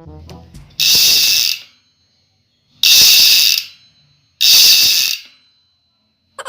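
Bicycle rear freehub ratcheting in three short, loud bursts of rapid clicking, each under a second long and each stopping sharply, as the wheel or cassette is spun freewheeling.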